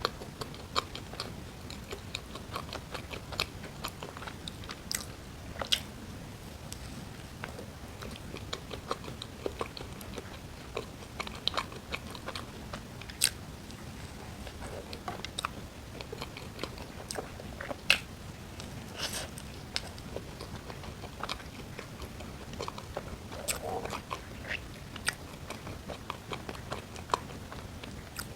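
Close-miked eating: a person chewing and biting food, with irregular sharp crisp clicks and smacks of the mouth over a steady low hiss.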